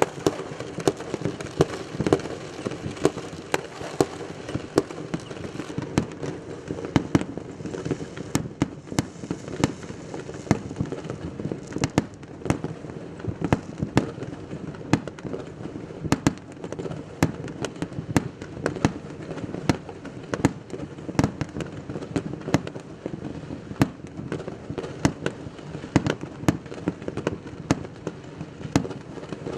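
Many fireworks going off at once: sharp bangs several times a second, over a constant background of more distant fireworks.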